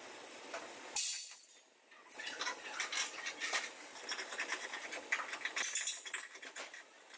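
Metal clinking and scraping, many small irregular clicks, with a short louder burst of hissing noise about a second in.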